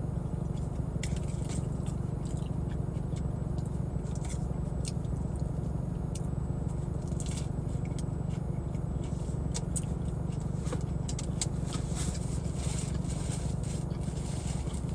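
Steady low rumble from the running, parked car, which the owner takes for the air conditioning, with scattered short crinkles and clicks of food being eaten over it.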